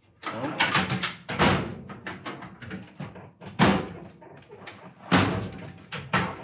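A run of knocks and clanks from an empty steel tool-chest drawer being handled while a tape measure is set against it, with the loudest hits about three and a half and five seconds in.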